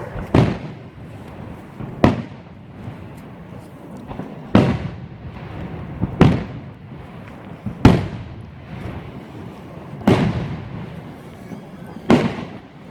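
New Year's fireworks going off: seven loud bangs about every two seconds, each trailing off in an echo, over a steady background of more distant bangs and crackle.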